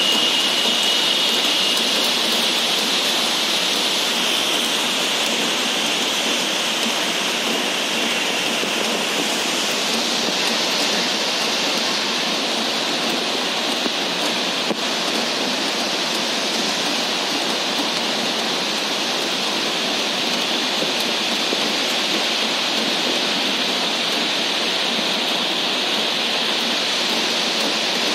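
Steady rushing water, a loud even wash of noise that holds unchanged.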